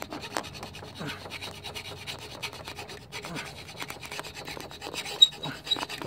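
Hand file rasping in repeated strokes against a painted steel scooter frame, stripping the paint to bare metal so a ground ring terminal can make good contact. A few short high pips sound near the end.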